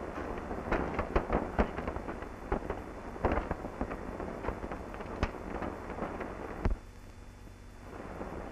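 Irregular sharp knocks and pops over a steady hiss. They cluster in the first couple of seconds and again a little later, with a lone knock about two thirds in, after which the noise is quieter for about a second.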